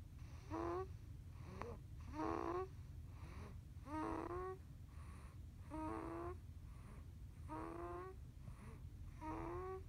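Snoring: a short, whining note that rises slightly in pitch on each breath, six times at a steady pace of about one every 1.8 seconds, over a low steady hum.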